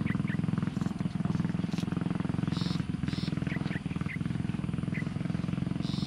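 A steady, low motor drone with a fast even pulse, with short high bird chirps repeating over it every half second or so.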